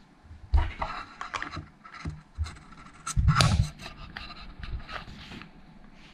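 Hands handling a heart rate monitor's plastic sensor pod and rubber chest strap: scattered clicks, rubbing and scraping, with a few dull bumps, the loudest a little after three seconds in.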